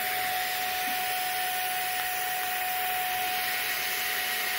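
Household vacuum cleaner running at steady speed, a constant motor whine over rushing air, its hose sucking the air out through the valve of a clothes-filled vacuum storage bag.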